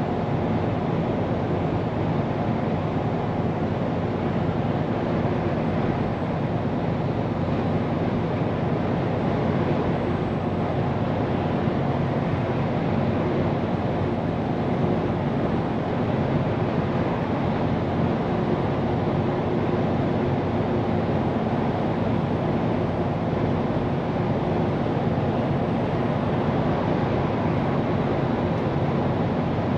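Scania P410 truck driving at a steady speed, heard from inside the cab: an even engine drone with tyre and road noise that stays level throughout.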